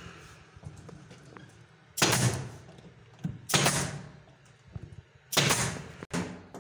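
Pneumatic nail gun firing nails through an MDF panel into wooden battens: four sharp shots, the first three about a second and a half to two seconds apart, the last two close together.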